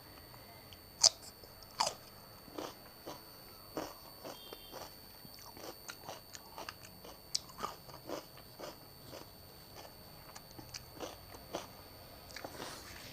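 Close-miked ASMR eating: a person biting into and chewing crunchy food in irregular crisp crunches, the two sharpest bites about a second in and just under two seconds in.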